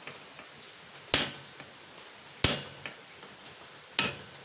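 Three hammer blows on a steel axle used as a drift, each a sharp metallic strike with a brief ring, about a second and a half apart. They are driving a tight, seized part out of a motorcycle's rear wheel hub.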